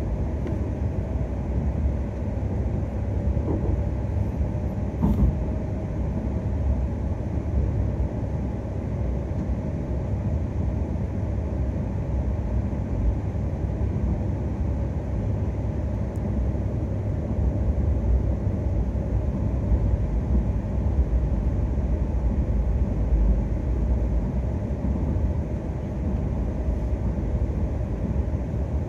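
Steady low rumble of a moving Akita Shinkansen Komachi train, heard inside the passenger cabin. A faint click comes about five seconds in.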